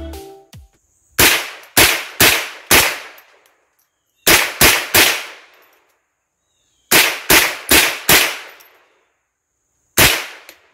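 Smith & Wesson M&P 15-22 Sport, a semi-automatic .22 LR rifle, firing about a dozen shots in quick strings of three or four, each string spaced roughly a third to half a second shot to shot, with a single shot near the end.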